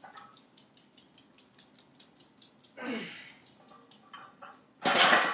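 Deadlift: a man's straining grunt about three seconds in as he pulls a loaded barbell, then near the end a loud clatter as the iron plates are set down on the floor. Fast light ticking, about five a second, runs through the first half.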